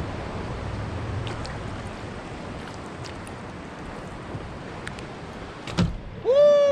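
Wind and lapping sea water on the microphone with a few faint clicks, a short knock near the end, then a long, loud whoop that rises briefly and then slides down in pitch as the fish is swung aboard the kayak.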